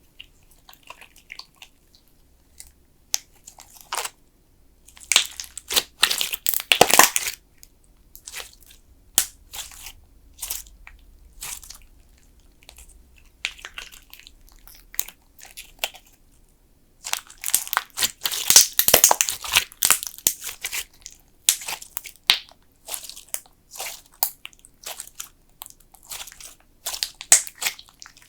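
Thick slime being squeezed and pressed by hand, giving a run of sticky clicks and crackles. There are two denser, louder stretches of crackling, one about six seconds in and one about eighteen to twenty seconds in.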